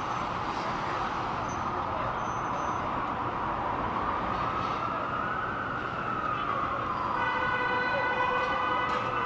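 A siren wailing, slowly rising and falling in pitch, over a steady rush of city traffic noise. A steady held tone joins it about seven seconds in.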